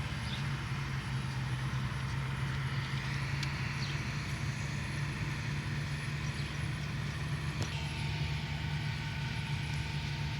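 Steady low mechanical drone, like a running motor or engine, with a faint tick or two.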